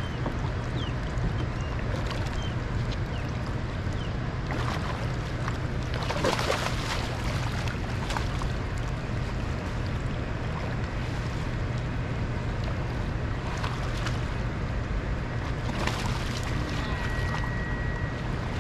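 Steady rush of water and wind around a small fishing boat drifting in the tailwater current below a dam, over a low steady hum. There are a few knocks or splashes about six seconds in, and a thin steady high tone starts near the end.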